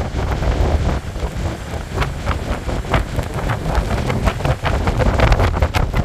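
Strong wind buffeting the microphone with a heavy, crackling rumble, over rough surf breaking along the shore.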